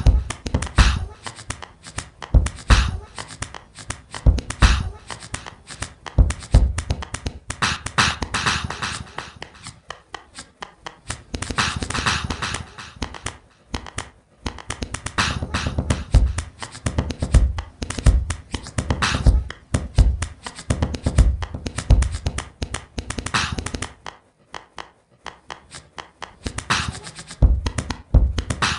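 A rhythmic hip-hop style beat of deep thumps and sharp hits, with a few hissing, scratch-like passages. It breaks off briefly a few times.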